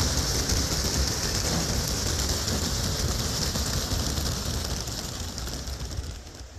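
Hundreds of racing pigeons released at once from a transport trailer, their wings flapping in a dense, even rush that grows quieter over the last couple of seconds as the flock flies off.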